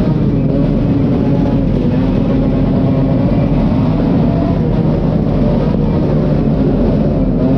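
Motorcycle engine idling steadily close by, a loud, even low-pitched running sound with no revving.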